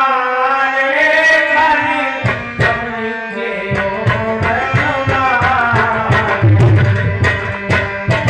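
Devotional music: a held melodic line that gives way about two seconds in to tabla playing, the deep bass drum strokes growing heavier near the end.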